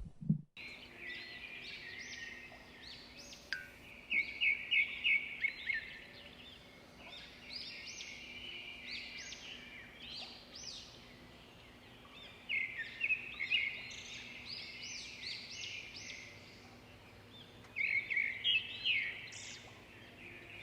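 Birds chirping in bursts of quick, high chirps every few seconds over a faint steady background.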